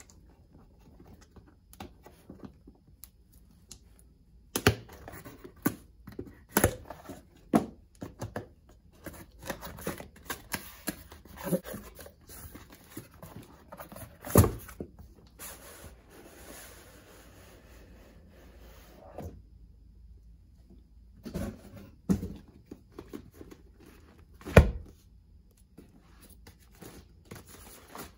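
Cardboard box being opened and handled: flaps and tape tearing, the box knocked and set down with several sharp thunks, and a stretch of steady rustling in the middle as the folded vinyl pool is slid out and shaken loose. The loudest sound is a sharp thunk near the end.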